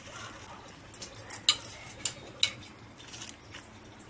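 Soaked rice being tipped into a pot of boiling milk, with a string of sharp metallic clinks of a utensil knocking against the aluminium pot. The loudest clinks come about a second and a half and two seconds in.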